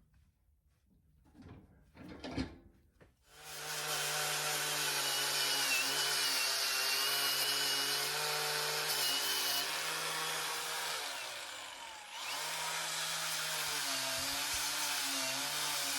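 A few light handling knocks, then about three seconds in an electric power tool starts and runs steadily under load, scouring rust off an old steel brake pedal. About eleven seconds in its pitch and level sag, then it picks up again.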